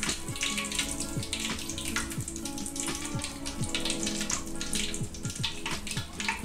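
Hot frying oil crackling and popping irregularly as freshly fried chicken pieces drain over the pan in a wire skimmer.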